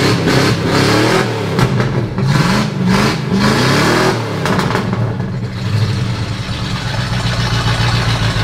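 Large engine revving in a series of quick rising blips for about four seconds, then settling to a steady idle.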